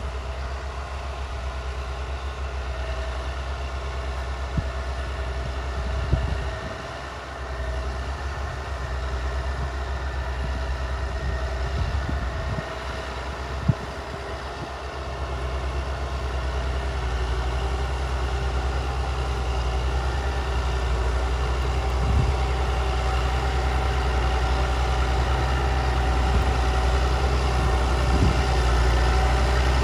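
Massey Ferguson tractor's diesel engine running steadily under load as it pulls a plough through the soil, growing louder as the tractor approaches. A few brief sharp knocks come through along the way.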